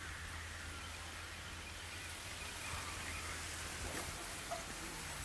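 Quiet outdoor ambience: a faint steady hiss over a low hum, with a faint short tick about four seconds in.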